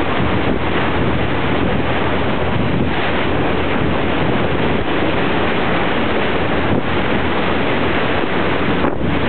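Wind noise on the microphone of a boat under way, over the rush of choppy sea water, with a low steady hum underneath.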